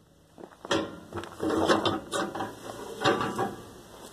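Steel grates and tray of a barbecue grilling pit rattling and scraping as they are handled and slid, in several short bursts of metallic clatter.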